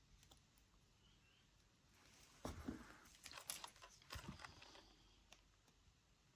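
Faint handling sounds of small jewellery supplies: a few soft clicks and a light rustle, clustered in the middle, otherwise near silence.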